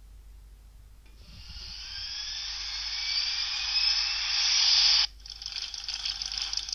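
Sound-effect files played back by an MP3-TF-16P MP3-player module through its small loudspeaker. A rising hissing whoosh with upward-gliding whistle tones starts about a second in and swells louder, then cuts off suddenly about five seconds in. A second effect follows at once, a rough noise with a fast crackling pulse.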